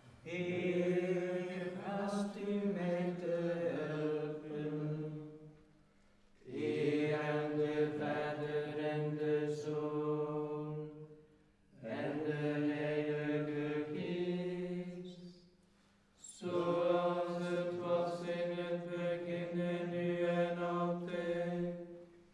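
Carmelite friars chanting vespers together in unison, holding mostly to one steady reciting pitch. There are four long phrases, each followed by a short pause.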